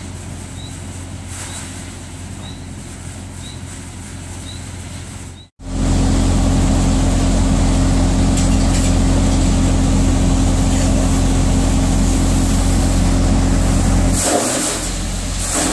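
Hay blower running steadily with a loud, even hum, starting abruptly about five and a half seconds in. Before that, a quieter steady low hum with a faint short chirp about once a second.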